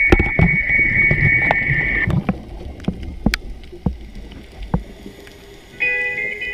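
Muffled underwater camera sound: a low rumble with scattered sharp clicks and crackles, and a steady high hiss that stops about two seconds in. Music with plucked guitar comes back in near the end.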